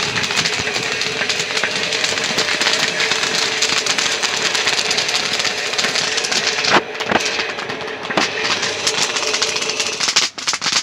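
Kettle corn being stirred with a wooden paddle in a large hot kettle, heard as a steady rushing, hissing din with scattered crackles. A few sharper knocks come about seven and eight seconds in.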